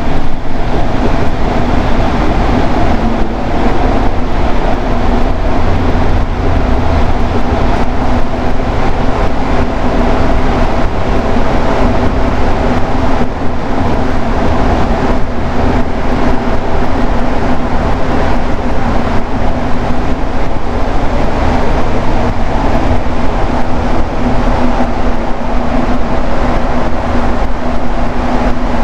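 Montreal metro train running between stations, a loud steady rumble with a constant hum held under it. Montreal's metro trains run on rubber tyres.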